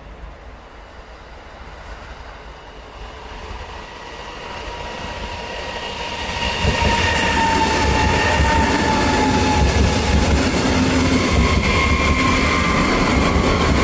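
Siemens Velaro RUS "Sapsan" high-speed electric train approaching and passing at speed: a rushing noise that swells over about six seconds and turns loud as the train reaches the microphone. A whining tone slides down in pitch as the cars go by.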